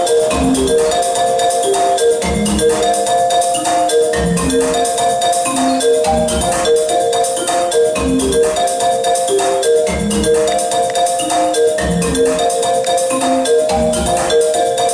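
Music: a short repeating melody of struck, pitched notes over a low bass note that comes about every two seconds, with fast ticking percussion on top.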